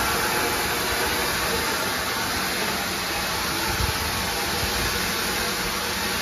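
Steam locomotive D14 10 standing at the platform, hissing steam steadily.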